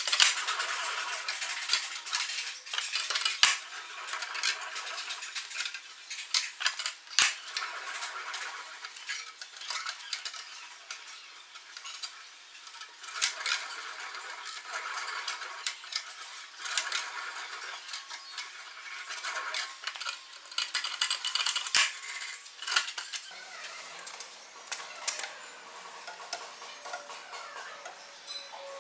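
Hand-cranked homemade three-roller bender rolling a flat steel strip into a ring: irregular metallic clinks, rattles and scraping as the steel runs through the rollers and its loose ends clatter.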